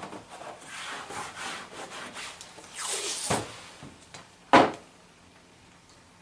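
Blue masking tape being pulled off the roll and rubbed down in rasping strips, with one short, loud rip about four and a half seconds in.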